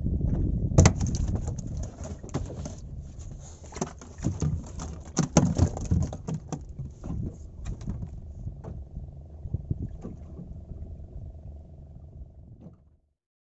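Irregular knocks and slaps from a freshly caught grouper being handled and moving on a fibreglass boat deck, over a steady low rumble. The knocks are thickest in the first half and thin out toward the end.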